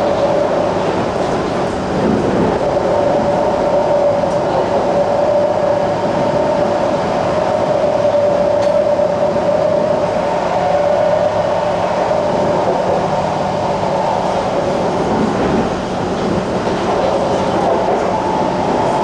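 Interior running noise of an SMRT Kawasaki C151 metro train with Toshiba PMSM propulsion under way between stations: a steady rumble of wheels on rail with a continuous drive whine, which fades somewhat in the second half.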